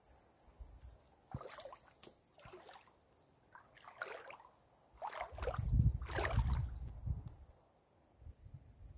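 Lake water lapping and sloshing against rocks and grass at the shoreline, close to the microphone, in a few irregular splashes. A low rumble comes in about five seconds in and is loudest for the next two seconds.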